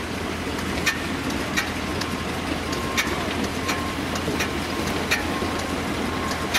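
A slow-running Gardner diesel engine, a steady low hum with a sharp regular tick about every two-thirds of a second.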